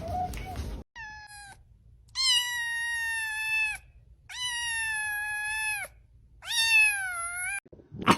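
A cat meowing: one short meow, then three long, drawn-out meows, each held at a steady pitch for over a second.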